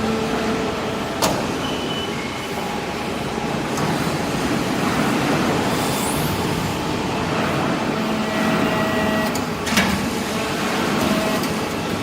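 Hydraulic steel-chip baler running: a steady mechanical hum and hiss with faint shifting tones, broken by a sharp knock about a second in and another near the end.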